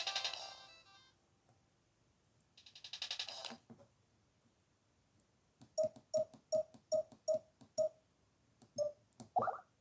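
Samsung SGH-Z140 mobile phone's loudspeaker: a polyphonic ringtone fades out in the first second, and a short snatch of another melody plays a few seconds in. Then come a run of about six short, evenly spaced beeps, one more beep and a brief rising chirp near the end.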